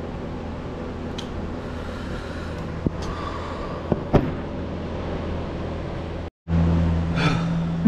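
Steady low hum with a few faint clicks about three and four seconds in; just past six seconds it cuts out for a moment and comes back louder, with a held low tone.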